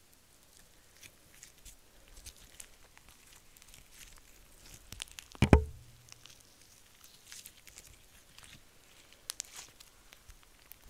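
Clear slime laden with gold leaf being stretched and squeezed by hand: soft scattered crackles, sticky pops and clicks, with one loud thump about halfway through.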